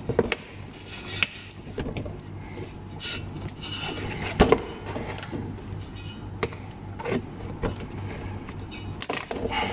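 A spanner and hands working a fastener on a car's plastic wheel-arch liner: scattered clicks and knocks of metal on the fastener, with plastic rubbing and scraping between them over a steady low hum. The loudest knock comes about halfway through.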